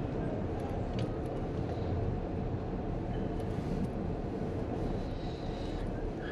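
Car cabin noise while driving slowly over cobblestones: a steady low rumble of engine and tyres on the stone paving, with a faint click about a second in.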